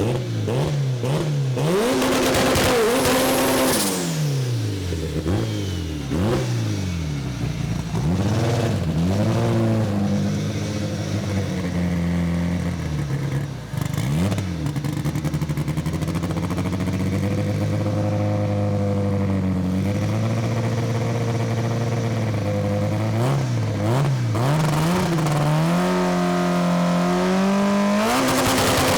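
Drag racing car's engine revving. It rises and falls in a string of quick revs, holds a steady higher rev for several seconds about halfway through, then revs up and down again before holding steady near the end.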